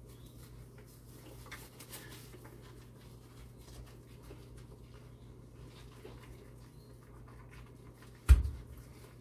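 Faint wet rubbing and squishing of shampoo being worked by hand into a standard poodle puppy's wet coat, over a low steady hum, with one sharp loud thump about eight seconds in.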